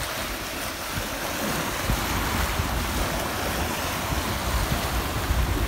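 Sea waves washing on the shore, a steady rush of surf, with wind rumbling on the microphone.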